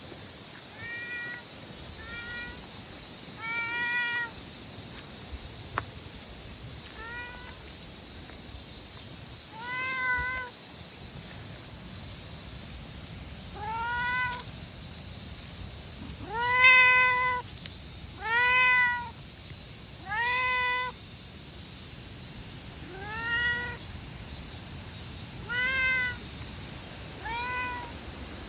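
A cat meowing repeatedly, about a dozen meows roughly two seconds apart, each rising and then holding its pitch. The loudest come around the middle, over a steady high hiss.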